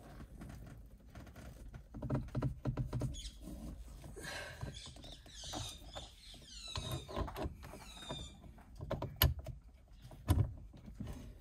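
Ratchet and socket straining against a very tight steering-wheel centre bolt: scattered clicks and knocks, a few seconds of high squeaking in the middle, and two sharp knocks near the end.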